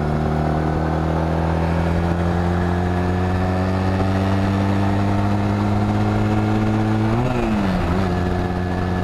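Honda Rebel 250's parallel-twin engine pulling steadily along the road with wind rush, its pitch slowly rising. About seven seconds in, the revs flare briefly and then drop to a lower steady note as the rider shifts up, the clutch pulled in a little early.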